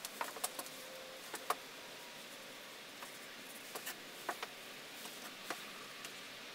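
Scattered light clicks and taps, about a dozen and irregular, from someone painting with a small brush at a board, over a steady hiss. The sharpest tap comes about a second and a half in.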